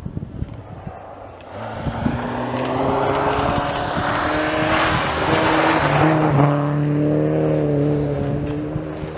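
A rally car drives past on a snow-covered special stage. Its engine note grows as it approaches and changes pitch a few times as it goes by, and tyre noise on the snowy, icy road swells around its closest point halfway through.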